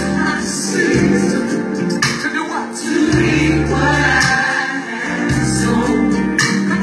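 Loud music with singing over a heavy, pulsing bass line and percussion.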